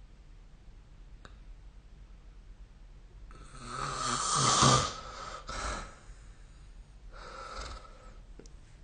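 A sleeping person snoring. After a few quiet seconds comes one loud, drawn-out snore, then a shorter snore right after, and a fainter one near the end.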